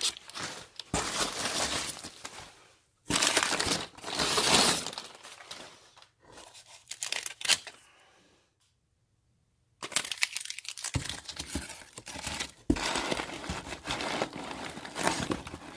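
Cardboard box and packing material being handled: rustling, crinkling and tearing in uneven bursts, broken by about a second of dead silence around the middle.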